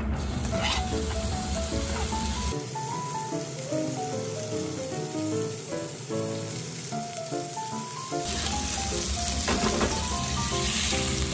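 Pieces of salmon sizzling as they are stir-fried in olive oil in a frying pan, louder in the first couple of seconds and again in the last few. A light background melody plays underneath.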